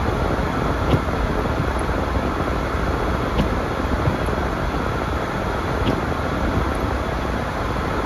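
Steady road and tyre noise inside a moving car on a snow-covered road. A light click comes about every two and a half seconds as the windshield wiper sweeps.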